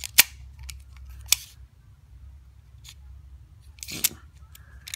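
Sharp little metal clicks from a tool working a C-clip off a Shimano Calais baitcasting reel. There are two loud clicks about a second apart, a few faint ticks, and a brief scrape of metal near the end.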